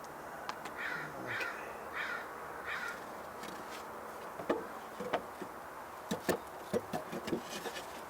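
A bird gives four short, harsh calls in quick succession, followed by a series of light knocks and clicks.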